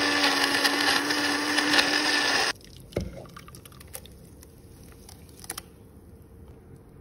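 Electric blender running steadily as it grinds a spice paste, then switching off abruptly about two and a half seconds in. A single knock follows, then faint clinks as the paste is poured from the blender jar into a pan.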